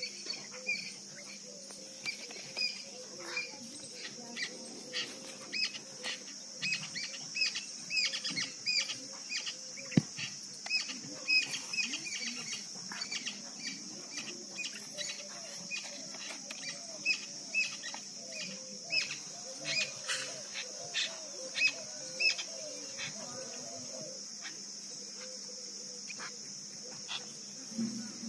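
Outdoor field ambience: a steady high-pitched insect drone, with frequent short bird chirps and light clicks, several a second, and one sharper click about ten seconds in.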